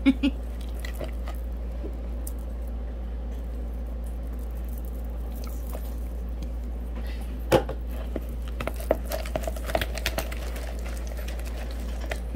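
Wooden craft stick stirring and scraping thick slime in a plastic bowl: soft squelches with scattered clicks, a sharp click about seven and a half seconds in, then a run of small clicks. A steady low hum runs underneath.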